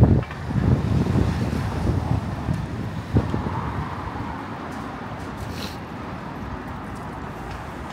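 Street traffic noise with wind gusting on the microphone, the gusts strongest in the first few seconds before settling to a steadier rumble.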